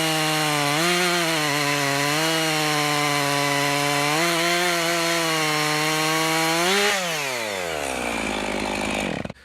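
Chainsaw running at high speed, cutting through pignut hickory with a chain freshly sharpened on an electric bench sharpener, and cutting really nice. The engine pitch dips slightly now and then under load, and about seven seconds in the throttle is released and the engine slows steadily down.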